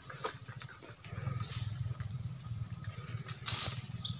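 A steady high insect drone over a low, pulsing rumble, with a short rustling swish about three and a half seconds in.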